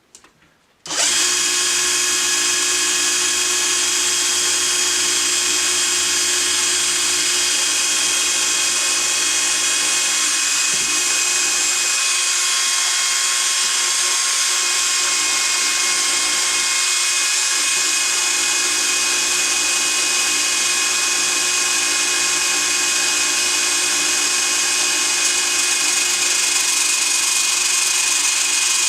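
Electric drill clamped in a vise, switched on about a second in and then running steadily at constant speed.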